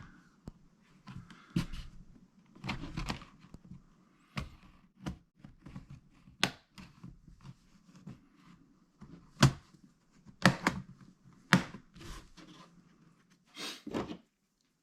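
Plastic case of an HP Pavilion laptop being pried apart with a small tool: scraping and handling noise along the seam, broken by sharp clicks as the case's snap clips pop loose, several of them between about six and twelve seconds in.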